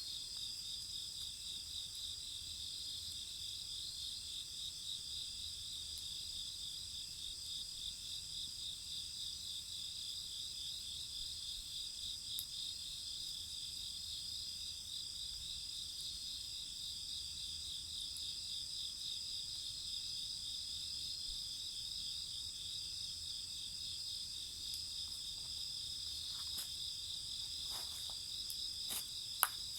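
Crickets chirping in a steady, continuous chorus of high, rapidly pulsing trills. A few sharp clicks come near the end.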